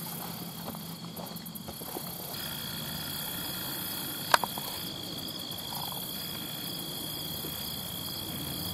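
Steady chorus of insects: an even high trill, with faster pulsing bursts higher up about a second in and again around five seconds. A single sharp click about four seconds in.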